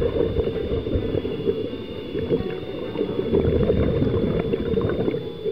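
Underwater sound picked up through a dive camera's housing: a muffled, churning rumble with bubbling and small clicks, over a steady high whine.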